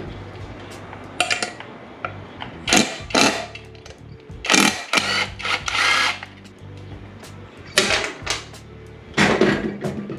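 Short irregular bursts of tool work on motorcycle bolts and fittings, each lasting about half a second to a second, over background music.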